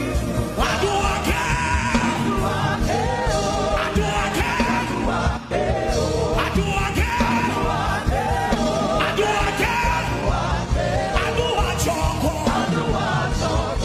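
Live gospel chant: a male lead singer chanting a repeated melodic line into a microphone over a live band.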